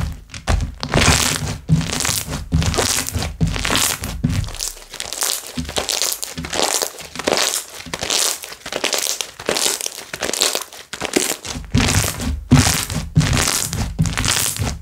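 Slime being squished, stretched and pressed by hand, with irregular crackling and squelching as its air bubbles pop. Dull thuds come in the first few seconds and again near the end as it is pressed or slapped down; in between there is only crackling.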